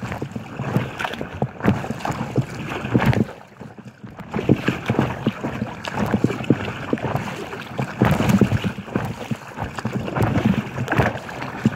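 Choppy waves slapping and splashing against an inflatable kayak's hull as it rocks, in irregular slaps with a short lull about four seconds in.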